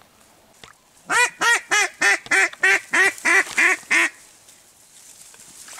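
A quick run of about a dozen loud, evenly spaced duck quacks, starting about a second in and lasting about three seconds.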